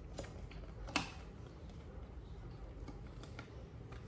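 Scattered light plastic clicks and taps as the twist-on filter cover of an Iris Ohyama IC-FAC3 mattress cleaner is lined up and rotated back into place, with one sharper click about a second in.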